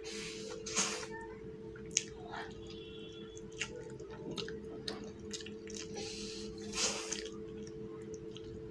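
Close-miked chewing of a hand-fed mouthful of rice and fish curry, with separate wet lip smacks and sharp mouth clicks over a steady low hum.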